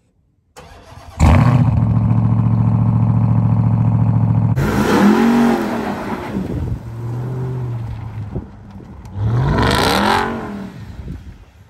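Ram TRX's supercharged 6.2-litre Hemi V8 starting up about a second in and running at a steady idle, then revved hard twice, the pitch rising and falling with each surge.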